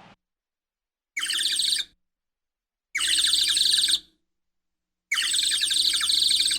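An animal's high, rapidly pulsing call, given three times with pauses between, each call lasting about a second.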